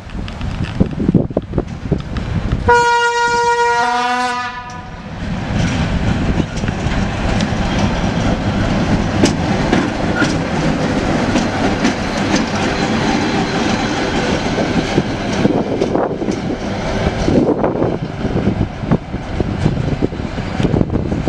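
ChME3 diesel shunting locomotive gives one horn blast of about two seconds, the note sagging as it ends. Then comes the steady sound of its running diesel engine as it passes close, with wheels clicking over rail joints and switches.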